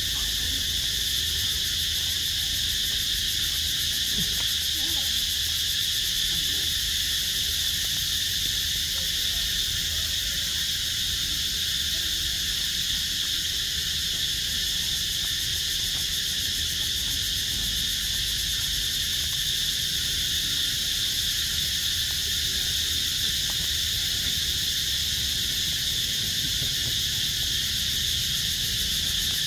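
Insects droning steadily at a high pitch, over a low rumble.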